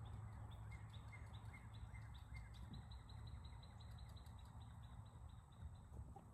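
Near silence with faint, rapid high chirping, about four chirps a second, that stops about four seconds in, over a low background rumble.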